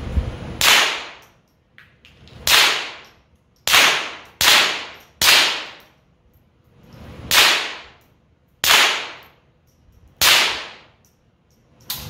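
About eight suppressed .22 LR rifle shots from a 10/22-pattern semi-auto fitted with a SilencerCo Sparrow suppressor, fired at an uneven pace roughly one to two seconds apart. Each shot is a sharp crack with a short fading tail.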